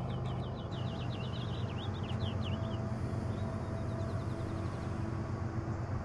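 Steady low distant rumble with a songbird singing: a rapid trill of quick repeated notes in the first half, and a shorter trill about three seconds in.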